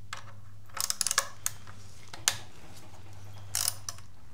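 Scattered metal clicks and clinks of a socket tool and small bolts as the valve body bolts of a 6L90E transmission are worked loose: a cluster about a second in, a single sharp click a little after two seconds, and a short burst near three and a half seconds, over a steady low hum.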